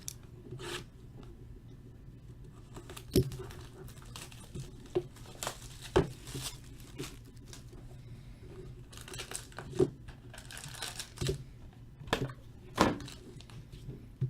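Wrapping being torn and crinkled by hand as a sealed trading card box is opened, with a few sharp taps and clicks in between.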